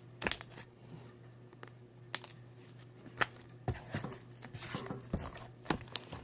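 Slime being handled and pulled from its container, giving scattered short sticky clicks and pops at irregular intervals.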